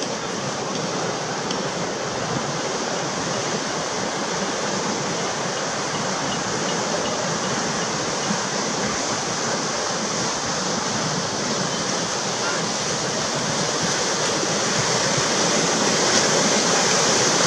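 Breaking whitewater of a small tidal bore rushing up a river, a steady sound of churning water that grows gradually louder toward the end.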